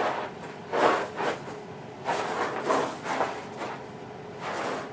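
Rough scuffing strokes on a short-pile carpet as a mess of flour, cereal and cat-litter grit is ground into the pile, about six swishes at uneven intervals.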